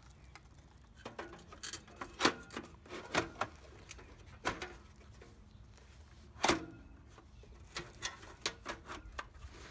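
Irregular clicks and knocks as a replacement ATX power supply is handled and fitted into a desktop computer case, with two louder knocks, one about two seconds in and one past the middle.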